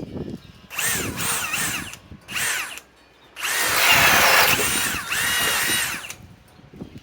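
RIDGID high-torque cordless hammer drill in its second speed, boring a 2-inch Speed Demon bit into wood. It runs in several bursts of the trigger, the motor whine sagging in pitch under load and recovering, and it stops about six seconds in.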